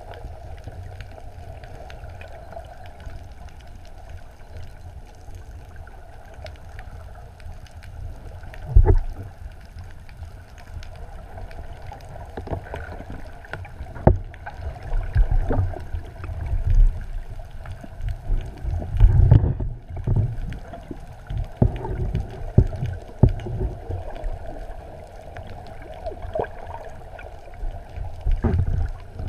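Underwater sound picked up by a camera held below the surface: a steady hum with water rushing past. Irregular low thuds and rumbles of water buffeting the camera begin about nine seconds in, and the loudest come around nineteen seconds.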